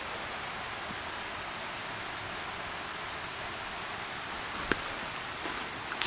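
Steady rushing hiss of the mountain stream in the gorge below, with a single footstep on the dirt trail late on.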